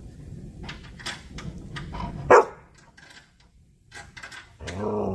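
A dog barking: one sharp, loud bark a little over two seconds in, then a longer pitched bark that rises and falls near the end. Light clicks and knocks of work in between.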